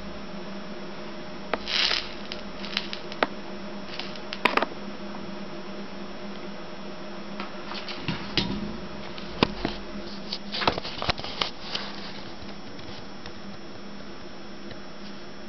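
A steady low hum throughout, with scattered sharp clicks and brief rustles of tools being handled at a work table, bunched about two seconds in, about four and a half seconds in, and again about eight to twelve seconds in.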